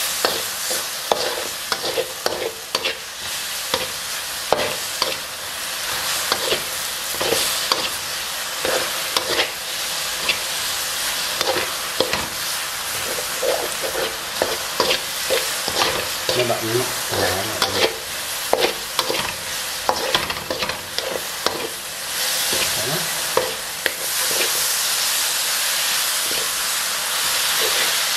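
Sliced meat stir-frying in a steel wok: a steady sizzle, with the metal spatula repeatedly scraping and clicking against the pan. Near the end the sizzle swells louder as kale goes into the wok.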